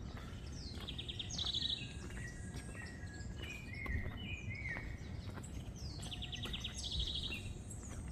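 Songbirds singing: a phrase with a fast, high trill comes twice, with short falling whistled notes between, over a steady low background rumble.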